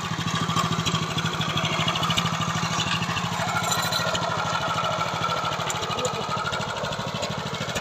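Small engine of a KB-365 mini tiller running steadily, with a rapid, even putter.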